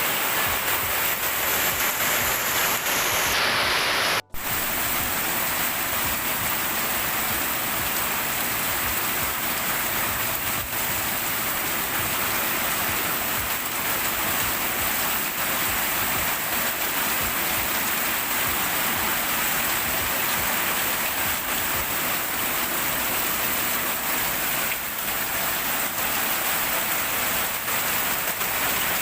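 Heavy rain pouring steadily, a dense even hiss. About four seconds in it cuts out for an instant and then carries on.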